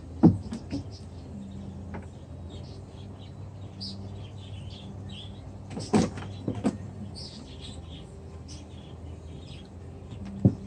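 Outdoor ambience: a steady low machine hum with faint bird chirps. Several sharp knocks and thumps cut through it, the loudest just after the start, a cluster about six seconds in and one near the end.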